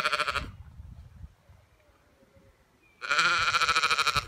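Zwartbles ewe bleating: a short bleat at the start, then a louder, longer, wavering bleat from about three seconds in that lasts just over a second.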